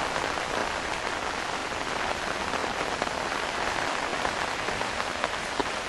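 Steady rain falling on a flooded road: an even hiss with scattered drop taps.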